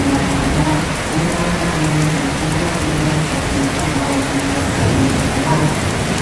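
Steady rain falling. Beneath it, a low voice chants shalawat in drawn-out held notes.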